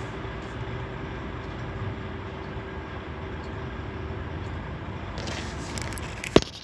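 Steady low engine rumble with a faint hum, then rustling and a single sharp click about six seconds in.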